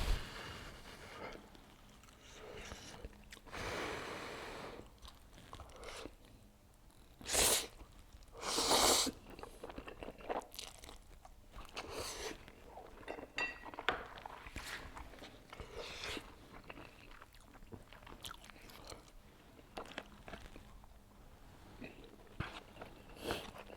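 Close-miked eating of instant noodles (Buldak spicy stir-fried noodles and Jjapaghetti): chewing with many small wet mouth clicks and smacks. Two louder noisy bursts come about seven and nine seconds in.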